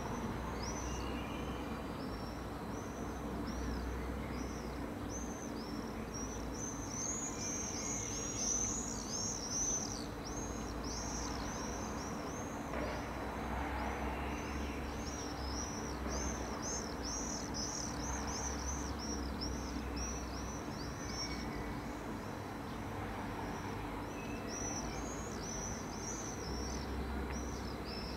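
Small birds chirping in quick, repeated high calls, about two or three a second. Under them runs the steady low hum of an SOB Stadler FLIRT electric train waiting at the platform.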